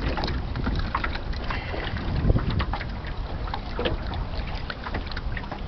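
Wind rumbling on the microphone in a small open boat, with scattered light knocks and clicks throughout.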